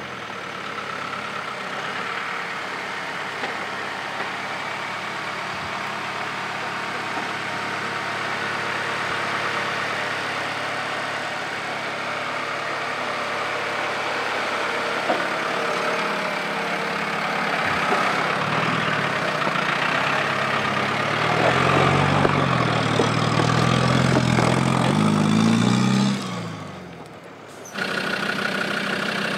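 Off-road 4x4 engine running, with the revs rising and falling several times about two-thirds of the way through as the vehicle works over a dirt track.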